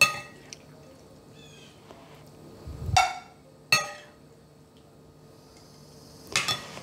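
Metal serving spoon clinking against ceramic dishes as stir-fried mustard greens are scooped from a serving dish onto a plate. There are four sharp, ringing clinks: one at the start, two close together about three seconds in, and one near the end.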